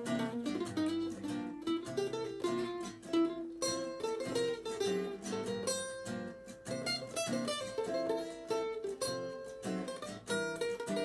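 Two acoustic guitars playing together: plucked notes and chords in an instrumental passage.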